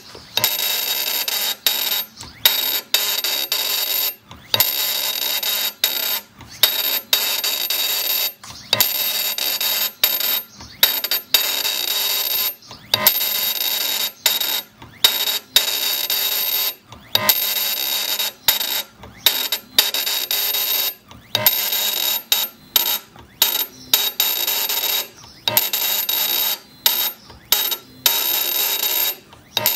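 CNC granite engraving machine working the stone: a harsh, loud cutting noise with a steady high whine, running in short passes that stop and start again every second or so.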